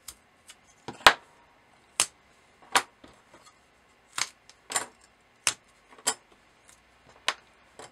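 Scored, V-cut fibreglass circuit-board panel snapped apart by hand into separate small boards: a run of sharp cracks, irregularly spaced, about one or two a second.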